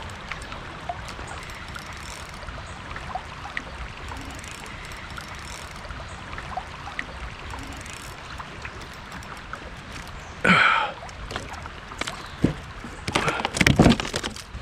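Steady rush of river water around a kayak with faint scattered ticks, then loud splashing and knocking near the end as a hooked smallmouth bass is fought and brought in: one burst about ten seconds in and a quick cluster a few seconds later.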